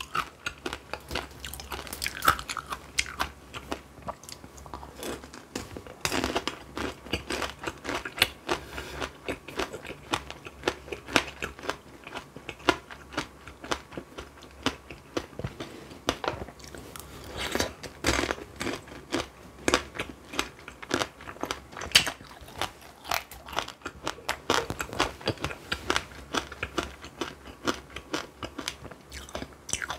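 Close-miked biting and chewing of tanghulu, fruit coated in a hard candied-sugar shell, the shell cracking and crunching in quick, irregular sharp clicks, several a second.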